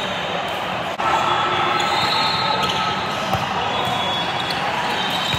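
Echoing din of a multi-court volleyball hall: balls being struck and bouncing, shoe squeaks and crowd chatter blending into a steady noise, with a brief dip about a second in.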